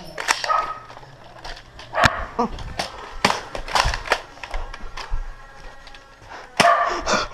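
Irregular sharp clicks and knocks from foam-dart blasters being primed and fired and darts striking, the strongest about two, three and a half and six and a half seconds in.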